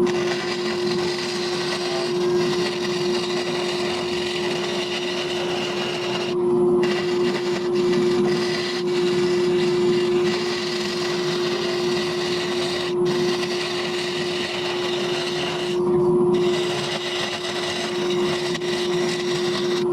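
Wood lathe running with a steady motor hum while a turning tool cuts into the spinning segmented wooden column, giving a rough scraping, cutting noise that swells and eases as the tool is worked along. The high hiss of the cut drops out briefly a few times.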